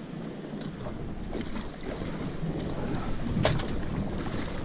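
Wind on the microphone and water lapping at the side of a small fishing boat, with one sharp click about three and a half seconds in.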